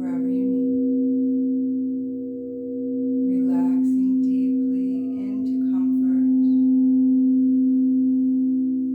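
Singing bowl sounding a steady low tone with several overtones, swelling and fading about every three seconds.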